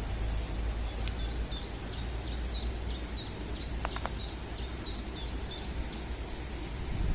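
Steady rush of a waterfall with a small songbird singing a series of about ten high notes, each dropping sharply in pitch, about two a second from about two seconds in until about six seconds in. Two sharp clicks about four seconds in.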